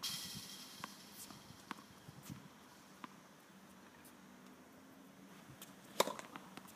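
Tennis ball struck by a racket once near the end, a single sharp pop, with a few light steps and scuffs on the hard court before it.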